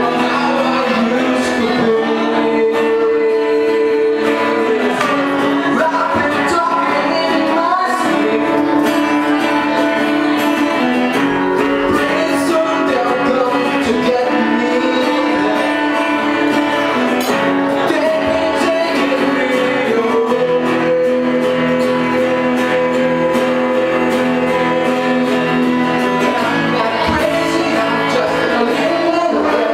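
A live band playing a song with electric guitar and sung vocals, held notes and chords changing every few seconds.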